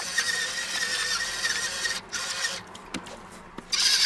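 Pepper mill grinding peppercorns: a steady grinding run that stops about two seconds in and starts again near the end.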